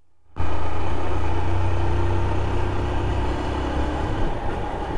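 Motorcycle engine running, with a heavy, steady low rumble on the GoPro microphone; the sound starts suddenly just after the beginning.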